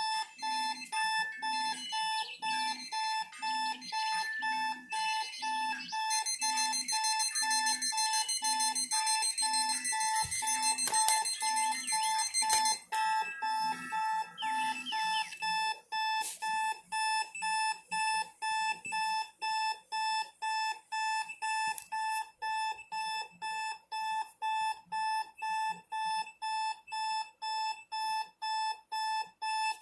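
Electronic alarm clock beeping in a rapid, evenly repeating pattern of one high tone. For several seconds near the middle, a second, brighter and higher electronic ringing tone is layered over it.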